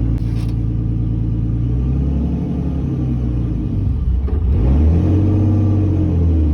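Turbocharged BMW E46 drift car's engine idling, then revving up and down in several short throttle blips as the car is driven slowly up onto a trailer.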